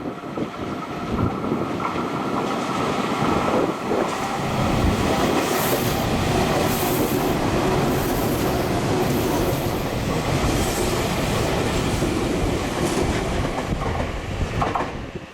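Meitetsu electric train passing through a station without stopping: the steady rumble and clatter of its wheels on the rails, with bursts of high-pitched hiss or squeal partway through, dropping off sharply near the end as the last car goes by.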